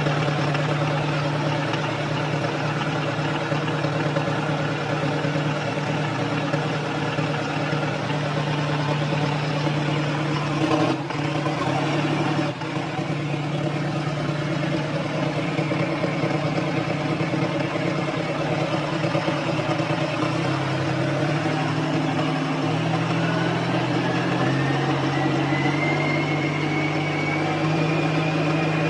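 Secondhand diesel engine running steadily. Over the last few seconds a whine rises steadily in pitch.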